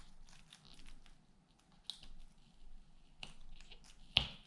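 An adhesive-backed piece being slowly peeled off a tablet's frame: faint, scattered crackling as the adhesive lets go, with one sharp click about four seconds in.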